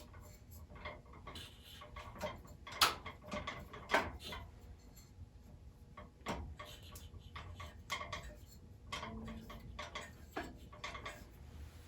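Irregular small clicks and taps of handling as a urethane tire is worked by hand into the groove of a bandsaw wheel, the two loudest taps about three and four seconds in.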